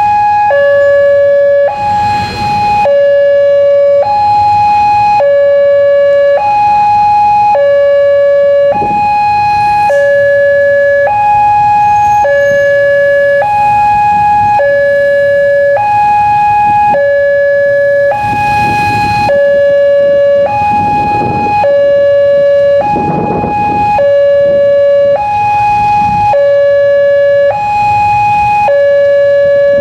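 Railway level-crossing siren sounding its two-tone warning: a low tone of about 560 Hz and a high tone of about 840 Hz, switching back and forth every half second or so without a break. It signals that a train is approaching and the barrier is down.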